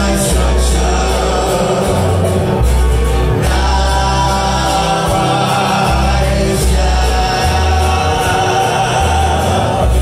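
Live mariachi-metal band playing amplified, with voices singing over guitars and a heavy bass line that changes note every second or so.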